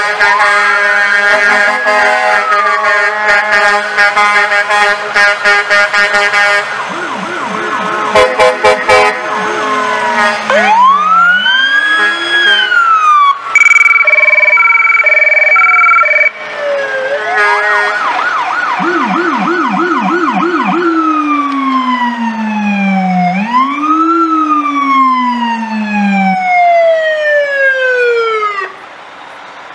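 Electronic sirens of police and fire vehicles, wailing up and down in pitch and switching at times to a fast yelp, with a steady horn blast in the first seconds. The sirens cut off suddenly near the end.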